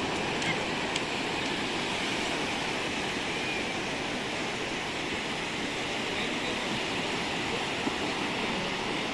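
Small sea waves breaking and washing up a flat sandy beach: a steady rush of surf.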